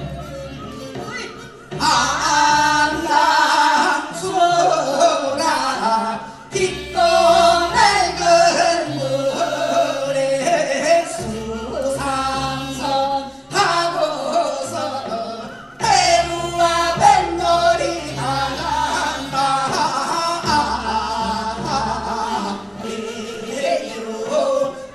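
Korean folk boat song (baetnorae) sung by a group of performers on microphones over amplified accompaniment; the singing comes in about two seconds in and runs in phrases with short breaks.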